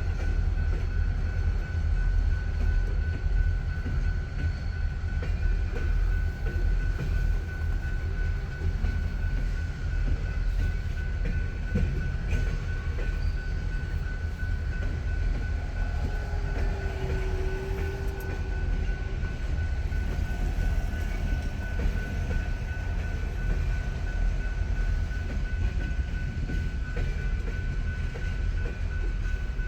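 Union Pacific local freight train rolling past: a continuous low rumble of cars and wheels on the rails, with a thin steady high-pitched whine throughout.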